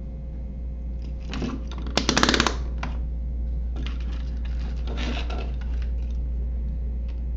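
Small hard parts and tools handled on a workbench. A quick burst of rapid clattering clicks comes about two seconds in, and softer clicking and rustling follows around five seconds in, over a steady low hum.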